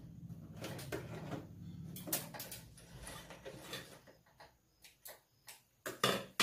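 Small electric sewing machine running steadily as it stitches a net sleeve seam, stopping about four seconds in. Then fabric rustles and a few short clicks as the garment is pulled out from under the needle, the loudest knock near the end.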